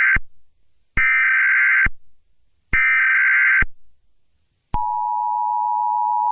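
Emergency Alert System SAME header: the tail of one burst of digital data tones, then two more bursts, each just under a second long with short gaps. Then the EAS two-tone attention signal starts about five seconds in and holds steady.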